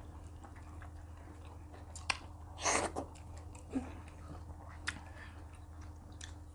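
Mouth sounds of people chewing and eating soft swallowed food with soup, with a few sharp lip-smack clicks and one louder, short wet burst just under 3 seconds in.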